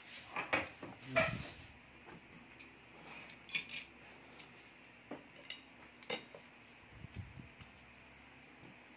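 Clatter of tableware at a meal: plates, forks and plastic sauce cups knocked and handled, a busy run of clicks and knocks in the first two seconds, then single clicks every second or so.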